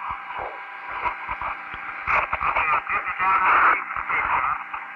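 Static-filled Gemini 4 air-to-ground radio channel, narrow and tinny, with a steady hum. Garbled, unintelligible voice fragments break through in the middle.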